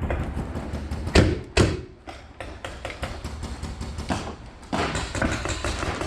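Paintball fire: two loud, sharp knocks about half a second apart a little over a second in, then a few fainter knocks later.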